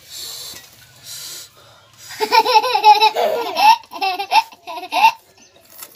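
A young child laughing: a run of quick, high-pitched laughs starting about two seconds in and lasting about three seconds, with softer breathy sounds before it.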